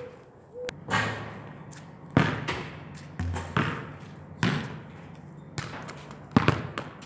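Football being kicked and bouncing on an asphalt court: a string of sharp thuds, roughly one a second.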